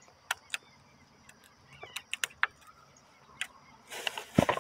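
Small scattered clicks and taps as a fishing hook and bait are handled close to the microphone, then a brief louder rustle with a couple of knocks about four seconds in, over a steady faint high hiss.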